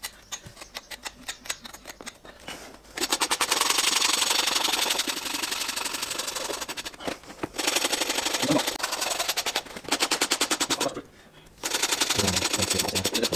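Farrier's rasp filed in fast, even strokes across a horse's hoof wall covered in hoof-casting material, stopping briefly twice; it is tidying the cast flush with the horn. Before the rasping starts, a few light clicks and scrapes from a hoof knife trimming the cast's edge.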